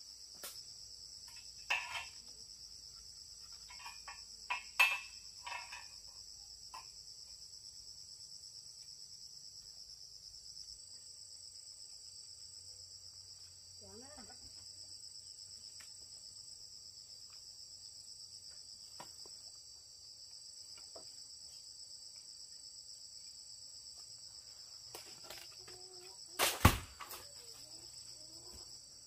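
Steady high-pitched insect chorus, with a few scattered knocks over it. The loudest is a single sharp knock near the end.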